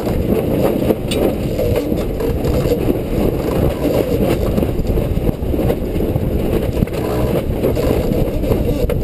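Wind buffeting the microphone on a sailboat under way: a loud, steady, rough rumble, with a few faint clicks.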